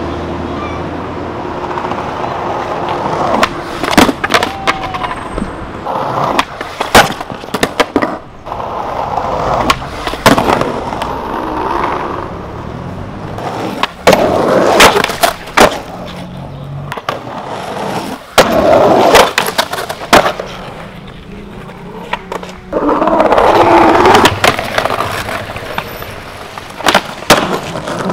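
Skateboard wheels rolling over concrete and paving, broken again and again by sharp clacks of the board striking the ground during tricks.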